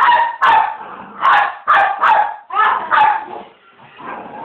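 Toy poodle barking in play: a quick run of short, high-pitched barks, about two a second.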